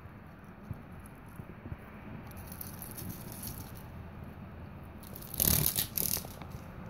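Beetles' clawed legs scratching and scrabbling on bark, with a few faint clicks, then a louder clattering scrape lasting about a second near the end.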